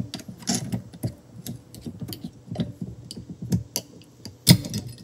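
Small screwdriver clicking and scraping against the steel retainer tabs and retainer ring of a Can-Am Smart-Lock front differential carrier as the ring is worked loose. A quick run of light metallic clicks, with one louder clank about four and a half seconds in.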